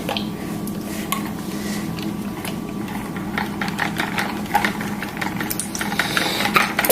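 Irregular light clicks and scrapes of a stirring utensil against a small container as slime mixture is mixed, over a steady low hum.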